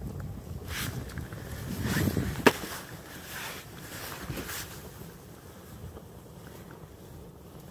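Fire burning synthetic rain gear: a low, steady rumble of flames that swells around two seconds in, with one sharp pop about two and a half seconds in and a few brief hisses.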